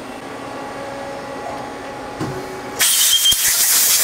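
Mazak Quick Turn 10N CNC lathe humming steadily, with a few steady tones, as its tapping cycle ends. A little over two seconds in comes a thump, then a loud hiss takes over.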